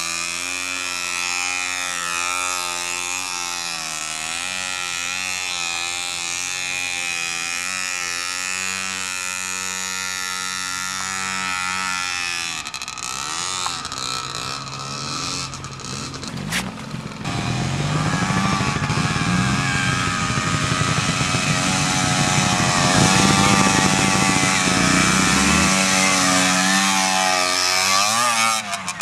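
Gas Gas TXT Boy youth trials motorcycle's small two-stroke engine running at low revs as it is ridden over rough ground. It runs steadily at first, goes fainter and uneven through the middle, then comes back louder with the revs rising and falling under the throttle.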